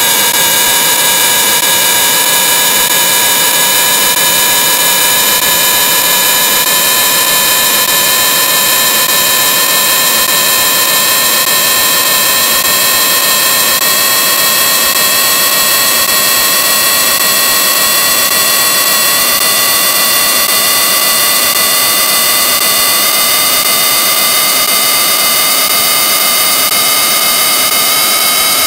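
Harsh, heavily distorted electronic drone: a loud hiss with a buzzing tone and its overtones that slowly rises in pitch, typical of the audio distortion used in video-effects edits.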